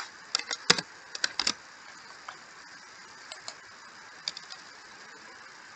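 Computer keyboard keystrokes: a quick run of clicks in the first second and a half, then a few scattered clicks over a faint hiss.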